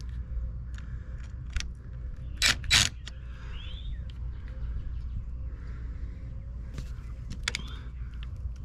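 A cordless DeWalt 20V driver run in two short bursts about two and a half seconds in, backing out Tapcon masonry screws from a hose bib mounting plate on brick. Light clicks of the bit and tools against the metal plate come before and after.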